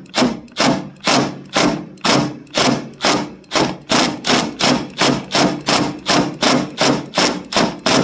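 Milwaukee cordless impact driver with a Phillips bit, run in quick trigger bursts of about three a second on a loose licence-plate bracket screw, hammering briefly in each burst. The bursts are kept short so the screw's nylon insert does not spin and strip.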